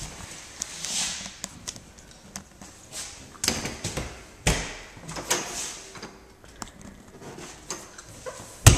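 Irregular knocks, clicks and short swishes, with one sharp, loud bang near the end.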